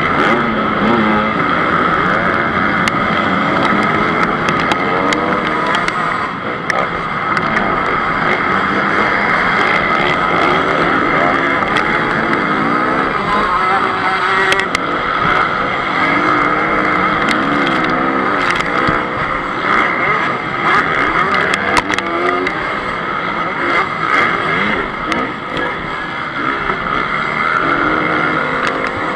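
Onboard a 2014 Honda CRF 250, its single-cylinder four-stroke engine revving up and down again and again through the gears, with the other motocross bikes of the pack racing close around it.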